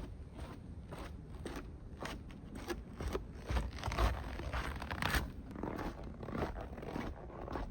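Footsteps crunching along a hiking trail at a walking pace, about two steps a second, with a low rumble about halfway through.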